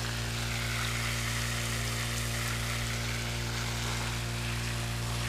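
Water spraying from a hose onto the ground with a steady hiss, over the engine of a Honda water pump running steadily at one pitch.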